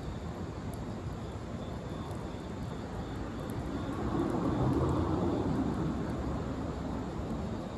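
A passing vehicle, its engine noise swelling and fading about halfway through over a steady outdoor rumble.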